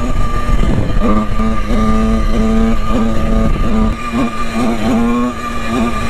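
Motorcycle engine running while riding, its note rising and falling several times, with wind rumbling on the microphone.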